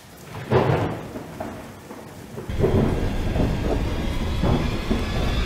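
Thunderstorm sound effects: a thunder clap about half a second in that rolls away, then heavy steady rain with deep rumbles of thunder starting suddenly about halfway through.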